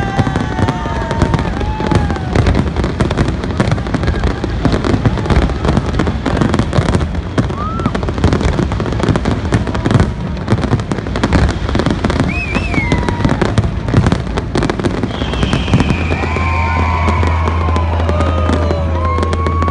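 Fireworks display going off continuously: a dense, rapid run of bangs and crackles with no break.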